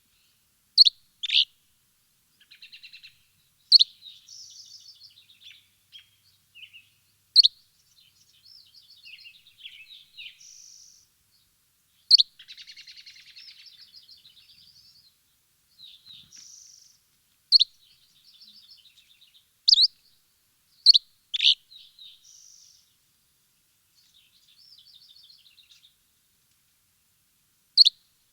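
Songbirds chirping: loud, sharp single chirps every few seconds, sometimes in quick pairs, over quieter rapid twittering trills.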